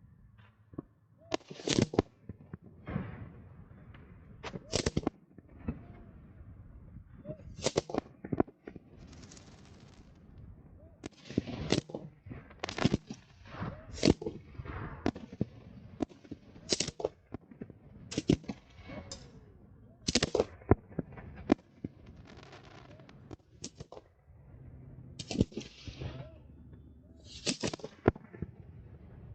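Fireworks display: a string of loud, sharp bangs at irregular intervals, roughly one every second or two, some followed by a short crackle or rumble.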